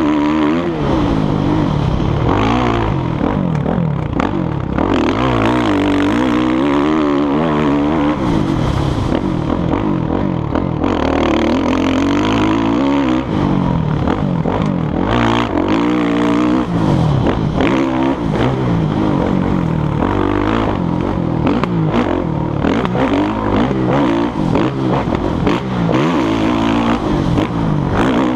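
Dirt bike engine revving hard and backing off over and over, its pitch repeatedly climbing and dropping as the rider accelerates and rolls off the throttle around the motocross track, heard from a helmet-mounted camera.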